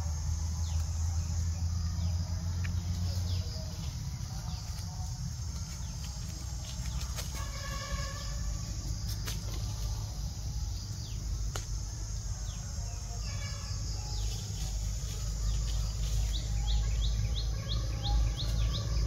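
Birds chirping in woodland: short, high, downward-falling chirps scattered throughout, with a quick run of chirps, about four a second, near the end. A steady low rumble lies underneath.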